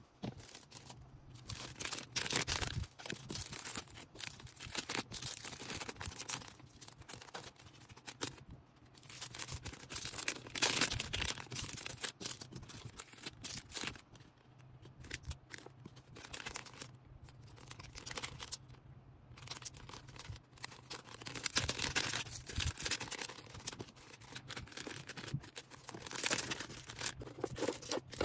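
Packing materials being handled for an order: crinkling and rustling in irregular bursts, with short tearing sounds.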